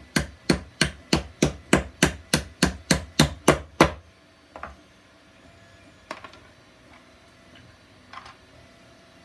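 A block of wood tapped down about thirteen times in quick succession, roughly three knocks a second, onto 3D-printed plastic puzzle parts on a wooden board, driving the square pins of the end caps into the square holes of the side arms. After that come a few light clicks of the plastic pieces being handled.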